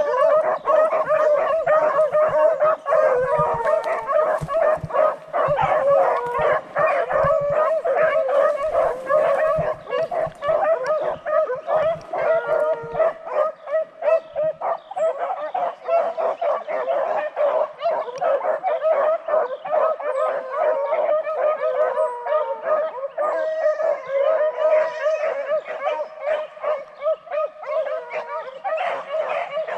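A pack of beagles baying without a break, many voices overlapping. This is the full cry of hounds running a rabbit's track.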